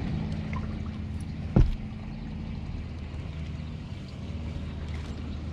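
Boat motor running with a steady low hum, broken by a single loud knock about a second and a half in.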